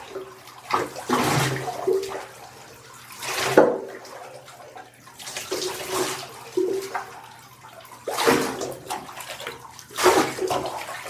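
Water from a handheld shower sprayer splashing over a wet dog's coat and into the bathtub, swelling and fading in bursts as the spray is moved while rinsing out conditioner.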